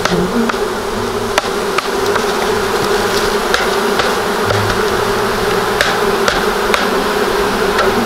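Steady buzzing of a mass of honey bees from a freshly shaken-out package, swarming over the queen cage and hive frames, with light sharp taps scattered throughout.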